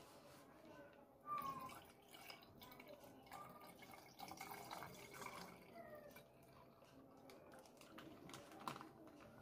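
Faint trickle and splash of milk poured from a plastic pouch into a steel pot, with light crinkling of the pouch and one short, sharper sound about a second in.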